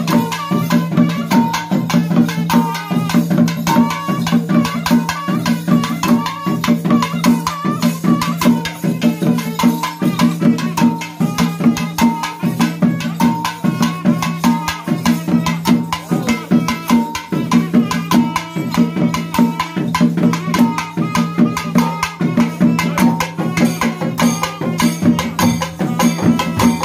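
Traditional Kerala temple drum ensemble playing a fast, unbroken rhythm on rope-laced barrel drums, with a melody line over a steady drone.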